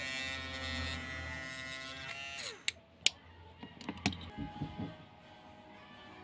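Small handheld rotary tool (mini grinder) running at steady speed against a diecast metal car body, a whining motor note, then spinning down with falling pitch about two and a half seconds in. A few sharp clicks and taps follow as the metal body is handled.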